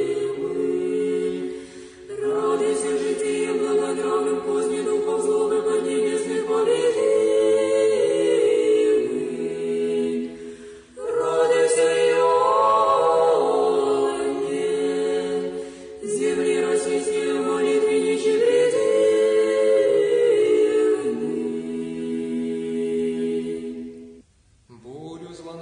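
Unaccompanied church choir singing a slow Orthodox chant in long held phrases, with short breaks between them. The singing fades out about a second before the end.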